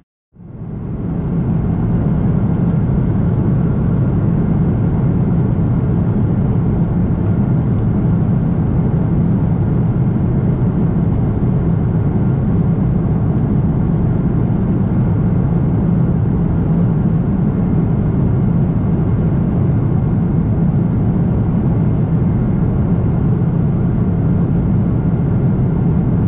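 Steady cabin drone of a Boeing 777-300ER in flight: an even mix of engine and airflow noise heard from inside the cabin. It fades in after a moment of silence at the start.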